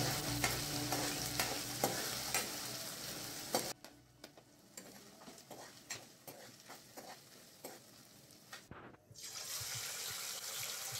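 Onions and garlic sizzling in oil in a kadai while a metal spatula stirs, scraping and tapping the pan. A little under four seconds in the sizzle drops away to faint scraping, and about nine seconds in a steady hiss of food frying in hot oil takes over.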